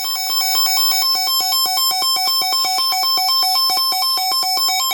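Electronic emergency alert tone warbling rapidly between two pitches, about eight to ten switches a second, over a steady high whine. It cuts off abruptly at the end.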